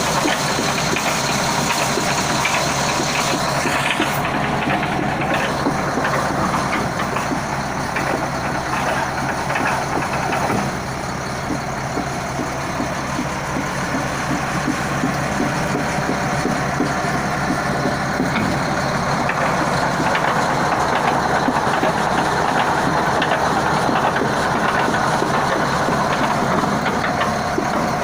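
Shantui SD20-5 bulldozer running, a steady heavy mechanical noise dense with fine clattering, shifting in tone about four and ten seconds in. The machine is being checked for an abnormal noise from its final drive (steering and brake system).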